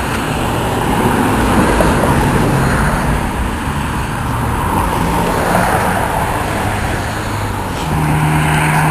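Road traffic: cars driving past with their engines running. A steady low hum comes in near the end.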